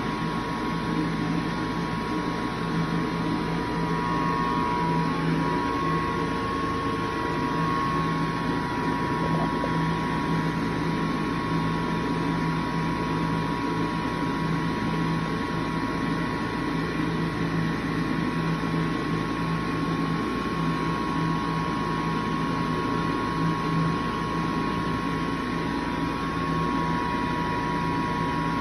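ASI Nova 5 push-button hand dryer running steadily: an even rush of blown air with a low motor hum and a thin high whine. The uploader says this unit works but has a huge timer problem.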